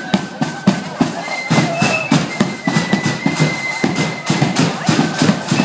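Marching flute band playing: drums beat a steady, even rhythm while high flute notes are held above it.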